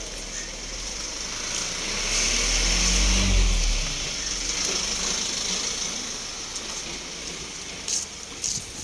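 Street traffic: a motor vehicle passing close by, its engine swelling to a peak about three seconds in and then fading, over steady traffic noise.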